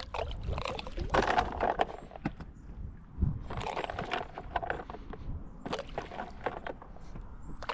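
Handfuls of tiger nuts thrown onto a lake, landing as scattered little splashes and plops in about four bursts.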